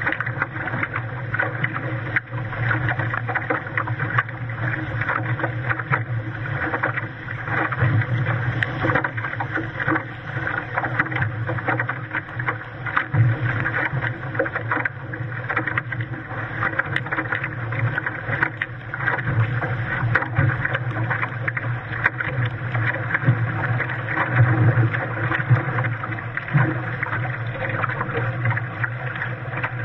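Lake water rushing and slapping against a sailing Hobie Cat catamaran's hull, with many small splashes, heard close up from a camera mounted on the hull.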